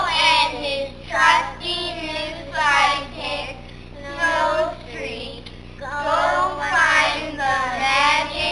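A group of young children singing together, in short phrases with brief breaths between them.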